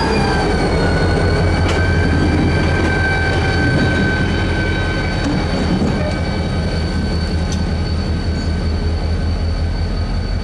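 Diesel freight locomotive rolling slowly by on a branch line, its engine a steady low rumble. High, thin squealing tones from the wheels on the rail dip in pitch right at the start and then hold steady.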